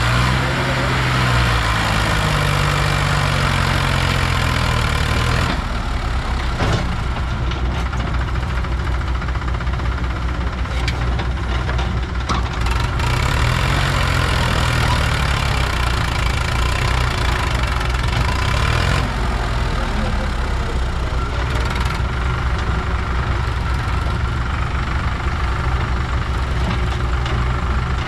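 Diesel engines of a Sonalika tractor and a JCB backhoe loader running under heavy load as the tractor strains to haul a trolley full of soil while the backhoe pushes it from behind. The engine note rises and falls near the start and again around the middle.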